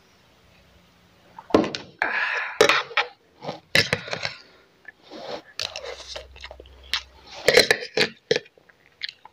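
Open-mouthed chewing of fried rice, with a spoon clicking and scraping on the plate, starting about a second and a half in as an irregular run of wet mouth sounds and sharp clicks.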